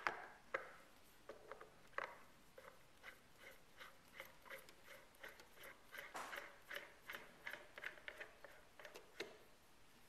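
Light metallic clicks and ticks from the steel parts of a Kitagawa QCRL collet chuck being fitted and turned by hand: one sharper click at the start, then a run of light ticks, about three a second, through the middle.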